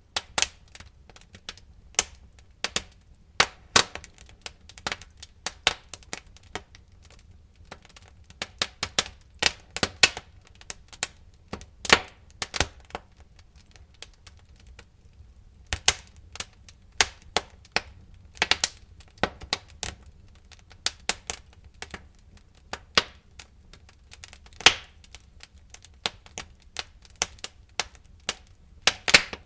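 Burning logs crackling and popping in a fireplace: irregular sharp pops, some loud and some faint, over a low steady rumble of the fire.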